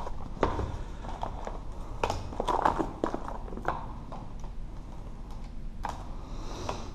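Scattered taps, clicks and knocks of lab equipment being handled on a bench: a cardboard box and a motion sensor with its cable are picked up and set down. The knocks come thickest about two to three and a half seconds in.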